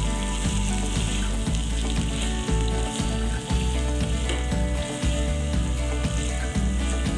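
Dry fish, onions and boiled potato cubes sizzling in oil in an aluminium pan while a wooden spatula stirs them, over background music with low held notes.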